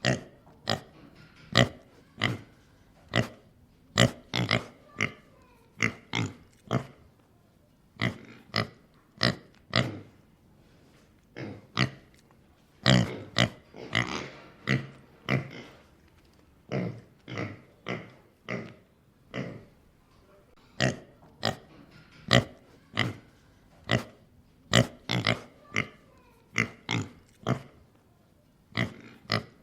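Pig grunting: a long series of short grunts, one to two a second, in runs broken by brief pauses, with a busier cluster of grunts about halfway through.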